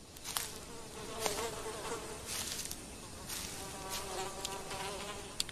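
Flies buzzing around a large dung pile, a droning hum that wavers in pitch, with a few faint clicks scattered through it.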